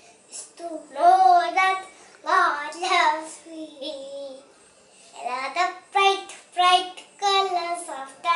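A young girl singing a nursery rhyme unaccompanied, in short phrases with a brief pause about four seconds in.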